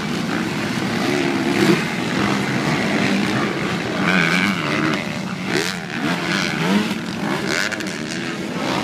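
Several motocross bikes' engines revving up and down as they race over the dirt-track jumps, their pitches rising, falling and overlapping.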